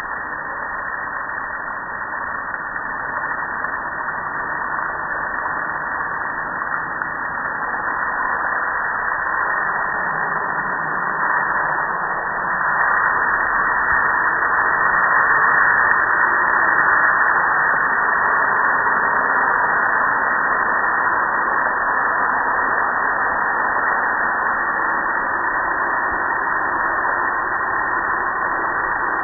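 Water spraying onto and splashing off a metal gas grill, a steady rushing hiss that gets louder about halfway through.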